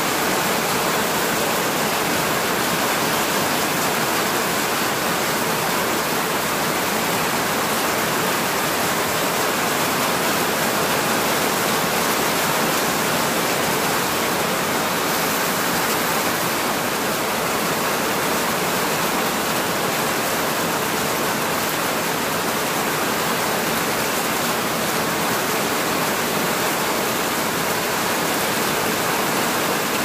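Heavy rain falling steadily on leafy ground plants and bare soil, a continuous even hiss with no breaks.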